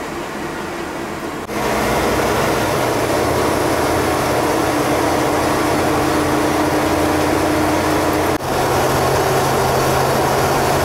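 Steady running noise heard inside a pickup truck's cab: the engine and the cab's heater fan, with a low steady hum. It steps up louder about a second and a half in and dips for a moment near the end.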